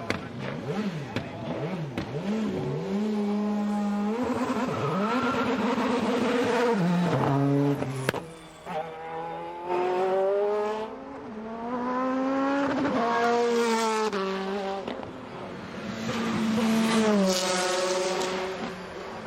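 Toyota GT-One TS020's 3.6-litre twin-turbocharged V8 racing engine revving in quick blips at first. It then makes several longer climbs in pitch, each falling back before the next.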